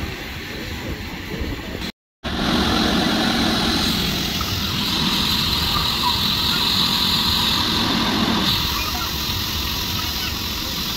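Electric air blower running steadily, pumping air into a water walking ball. The sound breaks off briefly about two seconds in, then comes back louder and steadier.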